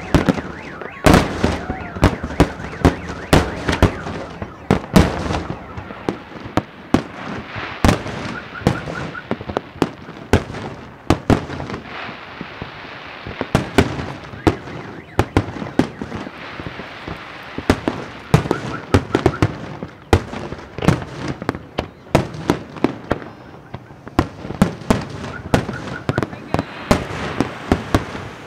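Aerial firework shells bursting in rapid succession: many sharp bangs, several a second, over continuous crackling, with no let-up.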